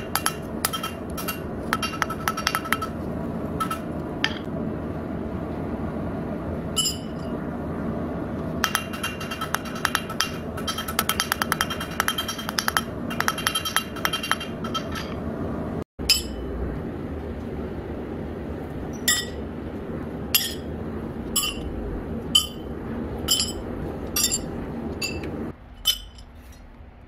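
Hand hammer striking a red-hot steel breaker chisel bit on an anvil: sharp ringing metallic blows, in a dense fast run in the middle, then single blows about a second apart, over a steady background rush.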